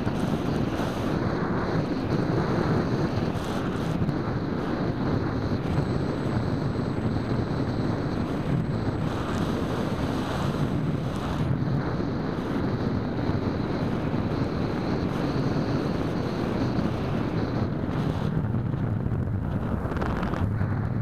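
Steady wind rush buffeting the microphone of a keychain camera mounted on a flying EasyStar 2 foam RC plane, a constant low rushing noise.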